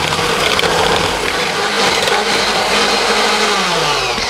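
Electric hand mixer running steadily, its beaters working butter, eggs and sugar into a batter. Near the end the motor slows, its pitch falling.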